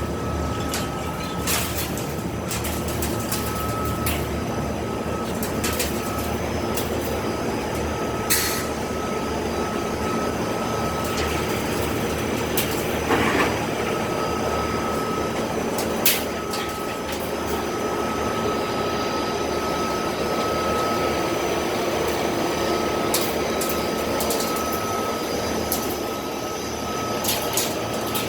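Foam-scrap recycling machinery running steadily: the silo, dust collector and regenerator line, with a steady high whine over the machine noise and occasional sharp knocks.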